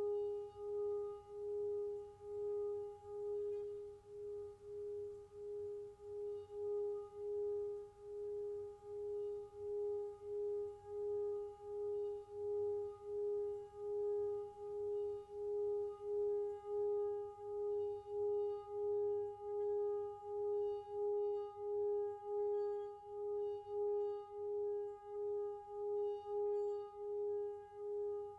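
Tibetan singing bowl sounding a sustained low tone that swells and fades about twice a second, over a steady higher tone and faint high ringing tones like tuning forks.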